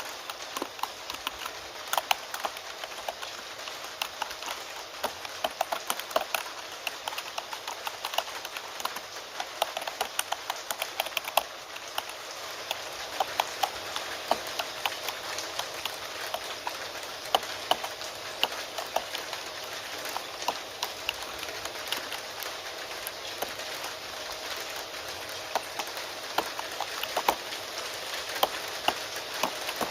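Computer keyboard typing, a quick, irregular run of key clicks, over steady rain.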